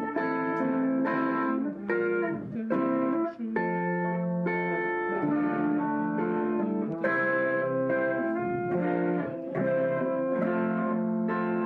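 Electric guitar, a Les Paul-style solid-body with a capo, playing a slow run of picked chords and single notes, each ringing for about half a second to a second before the next.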